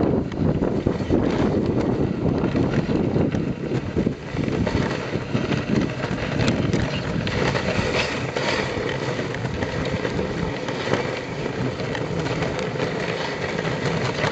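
Wooden dogsled sliding over snow behind a three-Samoyed team, making a steady rushing noise with faint irregular ticks and knocks.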